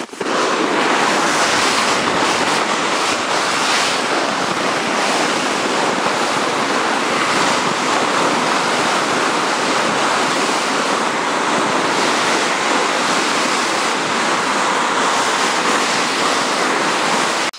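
A sled sliding fast down a snowy slope: a steady, loud rushing hiss of snow under the sled, mixed with wind across the microphone.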